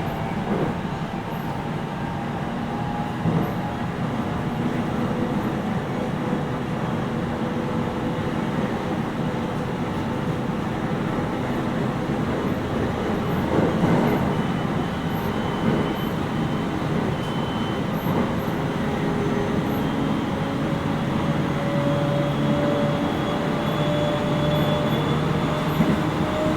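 Interior running noise of a 701 series 5500-subseries electric train, heard inside the motor car: steady wheel-on-rail rumble with a faint motor whine that rises in pitch through the second half. A brief louder knock comes about 14 seconds in.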